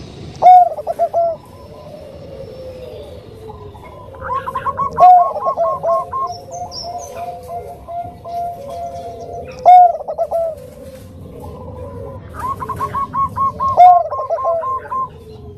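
Zebra dove (perkutut bangkok) cooing its song. There are four loud phrases about four seconds apart, two of them led by a quick run of short rising coos, and softer trailing notes between.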